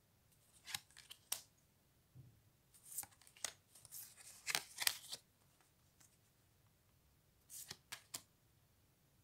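Large oracle cards being handled one by one, sliding and flicking against each other in the deck: short, soft scraping swishes in three small clusters with pauses between.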